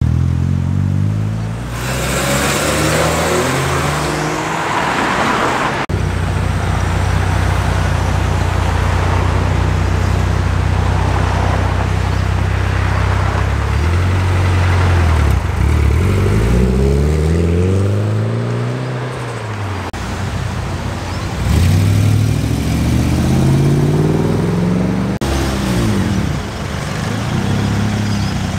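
Several street cars pulling away one after another. A few seconds in there is a rush of tyre and traffic noise. One engine then idles steadily for several seconds, and after that the revs climb and drop repeatedly as each car accelerates off.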